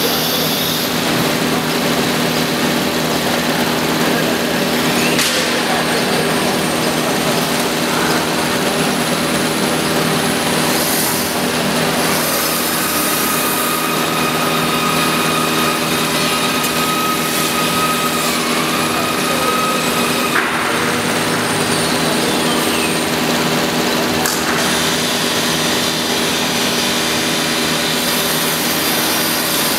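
CNC router spindle running steadily and cutting into a wooden panel, a constant machine hum with a whine. A higher tone holds for several seconds in the middle and cuts off suddenly.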